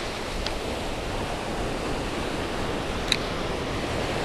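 Breaking surf washing up around the feet as a steady rush of water, mixed with wind on the microphone. A short, sharp click sounds once about three seconds in.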